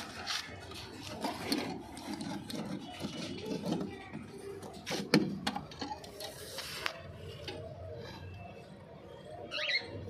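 Close rustling and scattered knocks, loudest about five seconds in, with a short high wavering squawk from an Indian ringneck parakeet just before the end.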